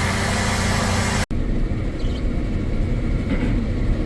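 Heavy farm vehicle's engine running steadily, heard from the cab. It breaks off abruptly a little over a second in, then continues with a deeper rumble and less hiss.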